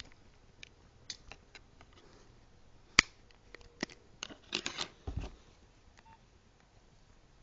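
Small clicks and taps from handling the Nokia 5800 phone and small tools during disassembly: one sharp click about three seconds in, then a quick cluster of clicks a second or so later.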